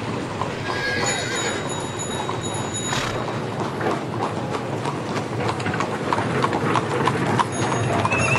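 Horses' hooves clip-clopping in a steady run of many overlapping hoofbeats, the sound of horse-drawn carriage traffic on a street, with a sharp crack about three seconds in.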